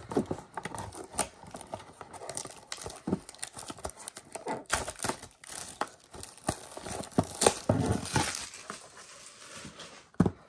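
Clear plastic shrink-wrap being picked at, torn and peeled off a cardboard trading-card box: irregular crinkling with sharp crackles and tearing, easing off near the end.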